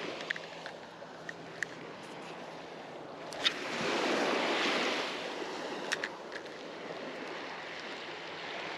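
Small surf washing onto a sandy beach, swelling as a wave breaks about four seconds in. A few sharp clicks sound over it, the loudest just before the wave.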